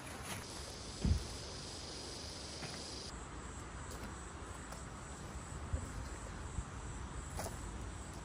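Insects trilling steadily outdoors. A high continuous trill drops out about three seconds in while a higher, fainter one carries on. Underneath is a low rumble of wind on the microphone, with a soft thump about a second in.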